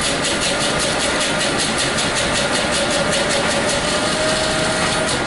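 Electric blade spice grinder running continuously while grinding spices, a steady motor whine with a rapid flutter from the blades. It stops right at the end.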